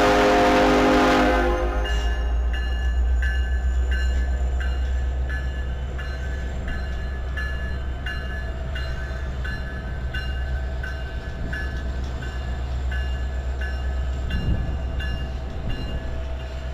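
Train horn sounding a chord that cuts off about a second and a half in, then the steady rumble of a passing train with a bell ringing evenly, about three strokes every two seconds, typical of a grade-crossing bell.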